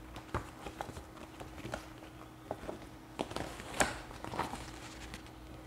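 Book packaging handled by hand: a scattering of light, irregular clicks and taps with soft rustling of plastic wrap and paper as a book's wrapping and enclosed poster are dealt with.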